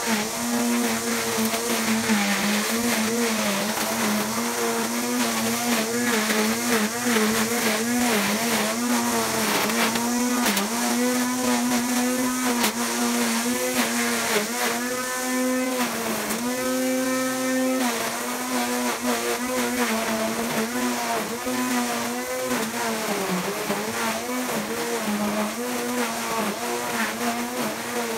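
Electric string trimmer running with a steady motor whine, its pitch dipping and recovering as the spinning line cuts through grass and weeds.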